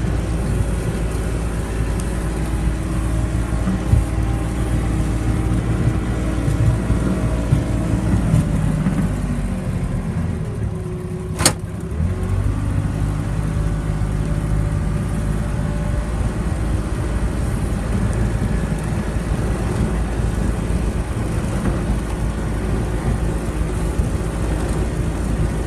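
Car being driven: steady engine and road drone, which drops briefly about halfway through, with one sharp click at that point.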